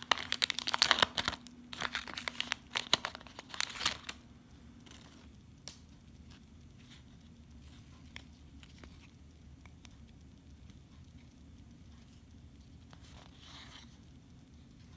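Plastic wrapping on Pokémon Battle Styles card packaging being torn open and crinkled for about four seconds, then only faint handling rustles and light ticks.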